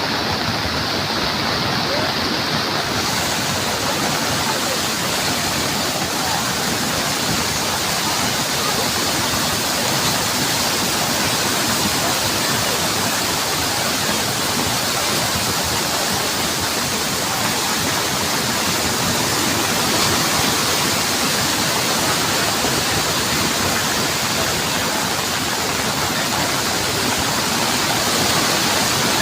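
Flooded hill stream (khad) rushing in spate, a loud, steady wash of torrential water.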